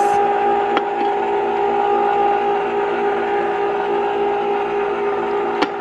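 Electric ice cream maker running, a steady motor hum as the paddle churns custard that has frozen thick after about 25 minutes. Two sharp clicks, about a second in and near the end.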